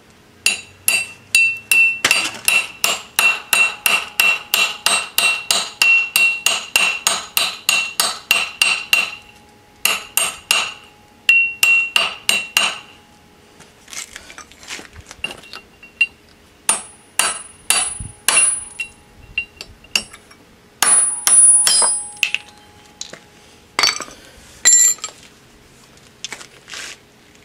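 Hammer striking the steel yoke of a universal joint to drive out its needle-bearing caps. The blows ring metallically and come rapidly and evenly, about three a second, for roughly the first twelve seconds. After a short pause they resume as slower, scattered strikes.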